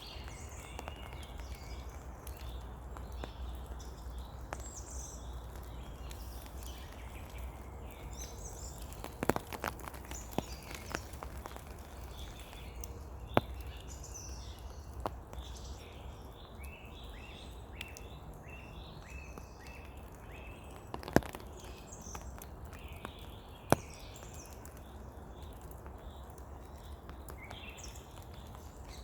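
Steady rain falling in a forest while songbirds chirp and sing throughout. A few sharp taps stand out above the rain, several close together about nine to eleven seconds in and single ones near thirteen, twenty-one and twenty-four seconds.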